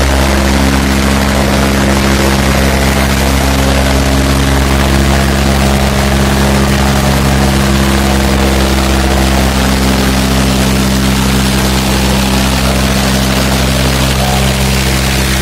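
Farmtrac 60 tractor's diesel engine running steadily under load as the tractor pulls an implement through loose soil. It is a loud, even drone with no change in pitch.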